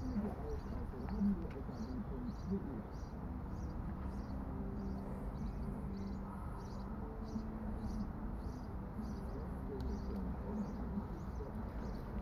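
A bird repeats a short high call about twice a second, over low grunting and growling from a French bulldog puppy chewing a rope-rimmed fabric frisbee.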